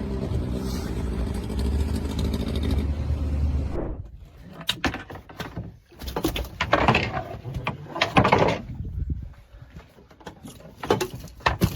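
An engine running steadily under rushing noise, which cuts off about four seconds in, followed by irregular knocks and uneven bursts of sound.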